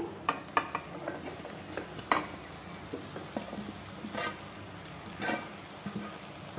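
Boiled potato chunks being squeezed and crumbled by hand against a metal plate: soft squishing with a few scattered light clicks and knocks, the sharpest about two seconds in.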